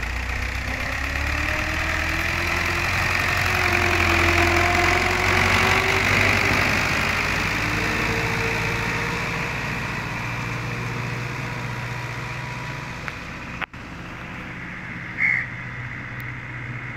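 A 640 tractor's diesel engine running under load as its blade pushes and levels sandy soil, with a wavering whine over the steady engine note. It is loudest about five seconds in, then slowly fades as the tractor moves away.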